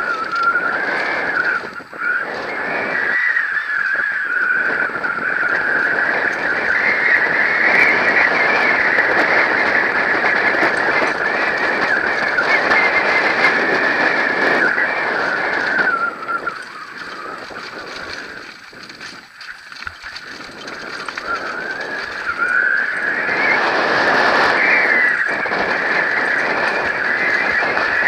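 Mountain bike descending fast on a dirt forest trail: rushing tyre and wind noise with a steady high-pitched buzz whose pitch wavers. Both drop away for a few seconds a little past the middle, then return.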